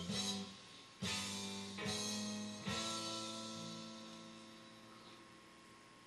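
Background guitar music: chords struck about once a second, the last one about three seconds in ringing out and fading away to faint room tone.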